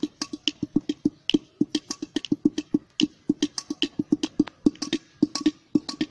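A round pot-like vessel hand-drummed in a fast, even rhythm, about six or seven sharp strokes a second, each with a low hollow ring: the percussion break between verses of a gaana song.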